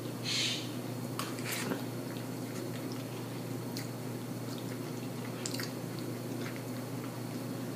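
Close-up wet chewing and lip smacks of a person eating with her mouth open, with scattered small clicks, and a short hiss about half a second in.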